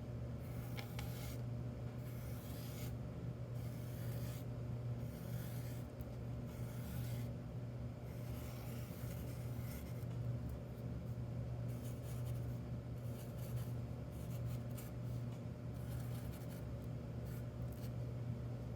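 Drawing on a cardboard tube: a series of short scratchy strokes, most of them in the first half, over a steady low hum.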